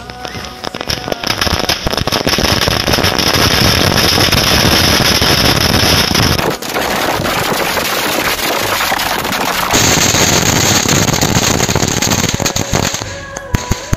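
Firecrackers packed inside a burning homemade Ravan effigy going off in a rapid, dense string of cracks, with a steady high hiss over them. The bangs drop off briefly about halfway through, then pick up again and die away near the end.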